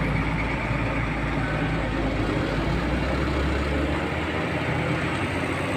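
Diesel locomotive engine running steadily out of sight: a low rumble that swells a little in the middle, under a steady hiss.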